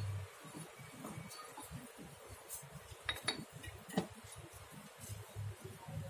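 A few light clinks and a knock, about three seconds in and again a second later, as the pad and blocks of a tyre-vulcanizing clamp are set against the tyre wall, over a faint low rumble.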